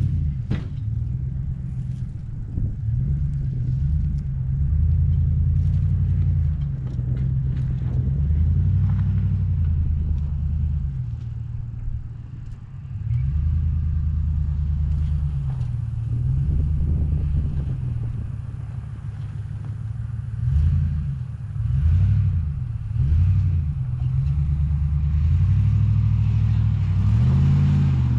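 An SUV's engine climbing a rough dirt trail off-road, its revs rising and falling again and again under load. A few sharp knocks are mixed in.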